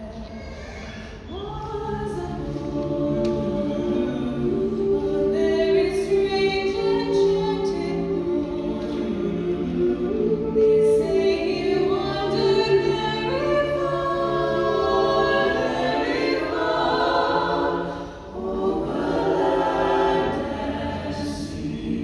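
Mixed chamber choir, men's and women's voices, singing a cappella in harmony. The choir starts soft and swells about a second in, with a brief pause between phrases near the end.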